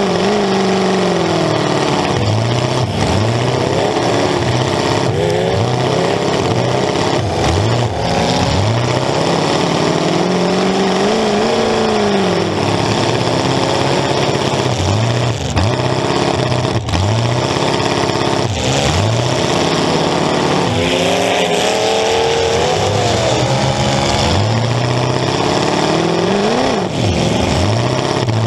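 Demolition derby car's V8 running through short open pipes up through the hood, revving up and down over and over as it drives, with sharp metal bangs of collisions here and there.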